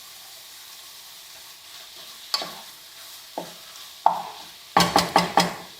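Beef mince, onions and capsicum sizzling in a frying pan while a cooking utensil stirs and knocks against the pan. A few separate knocks are followed near the end by a quick run of about five.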